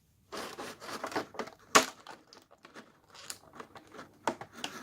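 Plastic blister packaging crinkling and crackling as it is handled and opened, with a run of small clicks and one sharp click just under two seconds in.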